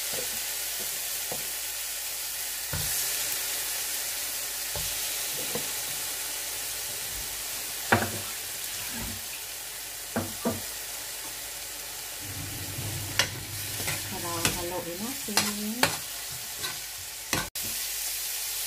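Shrimp sizzling as they sauté in hot oil in a nonstick frying pan: a steady frying hiss, with scattered short knocks and clacks, most of them between about eight and sixteen seconds in.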